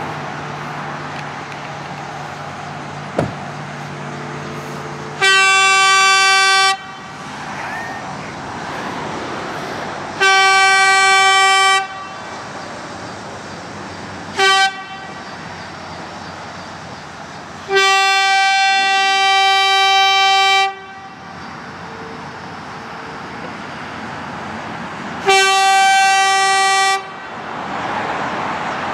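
Walkersville Southern Railroad train horn sounding the grade-crossing signal: two long blasts, one short, then a longer held blast, followed by another long blast near the end. A steady low rumble runs between the blasts.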